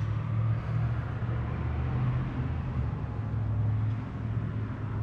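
Steady low mechanical hum, like a motor or engine running, over outdoor background noise.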